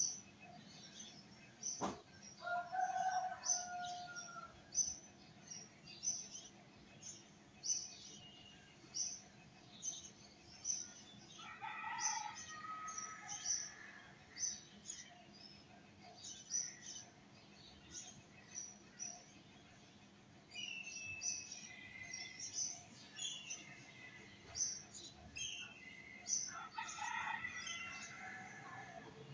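Birds chirping: many short, high chirps about twice a second, with a few longer calls in between. A single sharp click about two seconds in.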